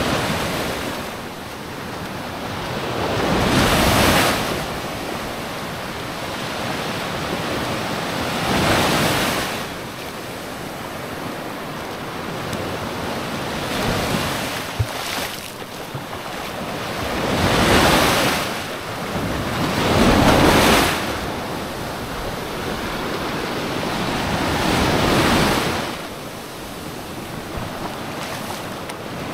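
Small sea waves breaking and washing up a sandy beach, each one surging and falling back about every three to five seconds over a steady hiss of surf.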